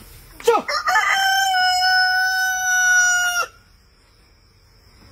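Rooster crowing once: a brief rising start about half a second in, then one long held note of about three seconds that cuts off sharply.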